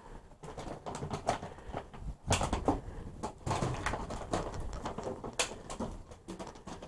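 Rummaging in a dumpster with a reach grabber tool: irregular clicks, knocks and light clatter as it picks through trash and drink containers, with two sharper knocks, about two seconds in and near the end.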